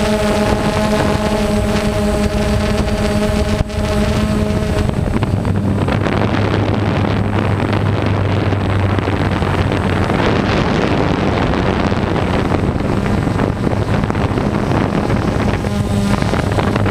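Small multirotor drone's motors and propellers running steadily, heard through the microphone on the drone itself, with wind rushing over it. About five seconds in, the motor pitch shifts lower and the sound turns noisier.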